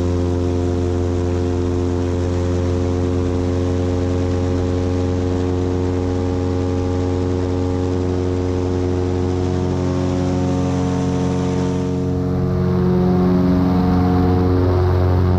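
Cessna 180 floatplane's six-cylinder Continental O-470 engine and propeller at takeoff power, a steady drone, with the hiss of spray thrown up by the floats. About twelve seconds in, the spray hiss drops away as the floats lift off the water.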